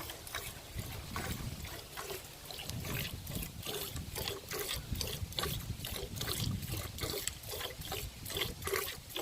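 A cow being milked by hand: streams of milk squirting into a pail in a steady rhythm of about three squirts a second.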